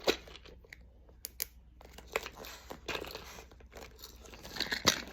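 Plastic packaging crinkling and rustling as unboxed items are handled, with scattered light clicks and a sharper click near the end.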